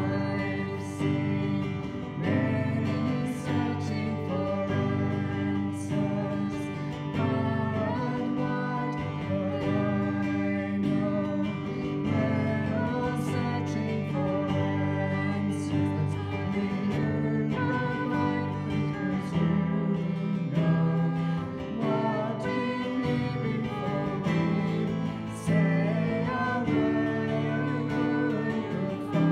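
Worship band playing a slow song: acoustic guitar and keyboard accompanying sung vocals.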